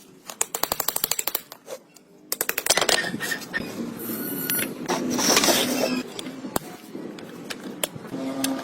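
Bursts of rapid mechanical rattling, about a dozen strikes a second, then a longer stretch of mixed workshop noise.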